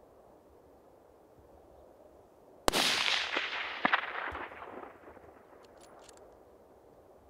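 A single rifle shot about two and a half seconds in, sudden and loud. Its report echoes and rolls away across open country for about two seconds. A few faint clicks follow about a second later.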